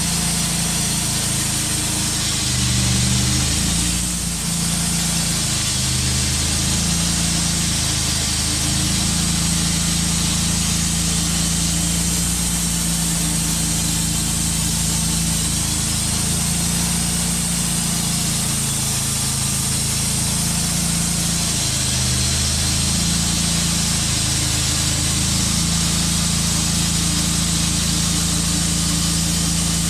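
Wood-Mizer portable band sawmill running under load as its band blade cuts through a maple burl: a steady engine note that shifts a little in pitch, with a steady high whine over it.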